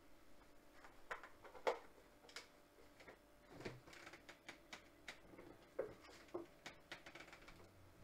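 Faint, irregular clicks and light taps, one louder click about two seconds in.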